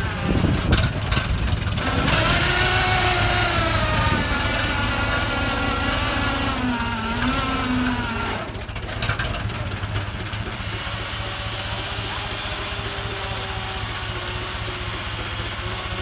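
The 1927 Indiana dump truck's engine running, its pitch rising and falling repeatedly over the first half, then settling to a steady idle. A few sharp knocks come about nine seconds in.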